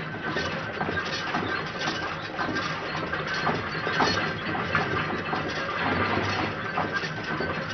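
Jean Tinguely's Méta-matic drawing machine running: a dense metallic clatter and rattle of its motor-driven arms, full of rapid sharp clicks.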